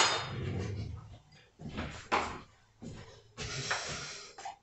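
Kitchen handling sounds: a loud knock right at the start, then several short clattering and scraping noises as utensils and a jar of mayonnaise are handled at the counter.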